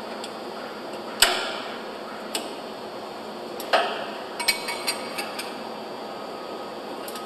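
Metal hand tools clicking and clinking on the steel coupler bolts of a concrete pump's piston rod as they are torqued down: a sharp click about a second in, a ringing clink near the middle, then a quick run of light clicks.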